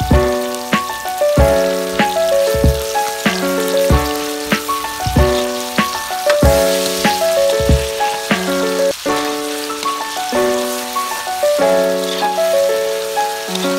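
Background music with a steady beat and held notes, over the hiss and sizzle of ground pork, garlic and chili frying in oil in a pan.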